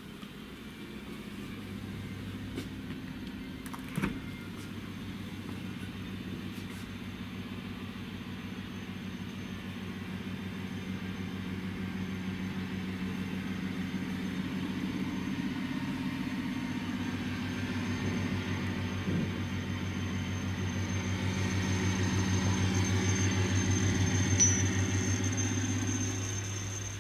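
A low, steady droning hum that swells gradually louder and fades off near the end, with a faint high whine above it and a sharp click about four seconds in.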